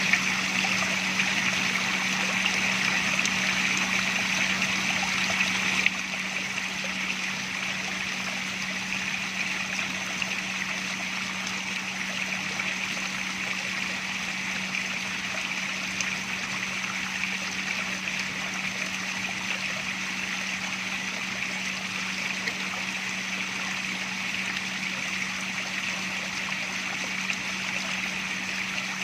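Running water from a water feature, trickling and splashing steadily, with a steady low hum underneath. It drops a little in level about six seconds in.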